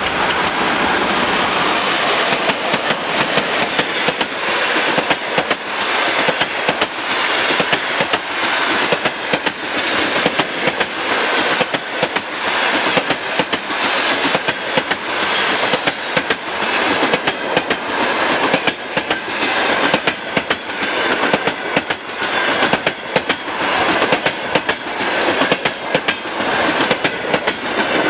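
ChS7 electric locomotive and its passenger train passing at speed close by: a steady rush of the carriages with a rapid clickety-clack of wheels over rail joints.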